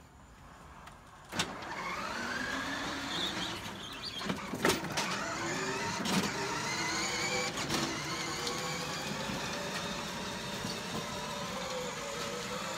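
A kid's battery-powered ride-on truck's electric drive motors and plastic gearboxes whining as it pulls away about a second and a half in, the pitch rising as it gets up to speed and then running steadily while it tows a trailer. A few sharp knocks and clicks sound along the way.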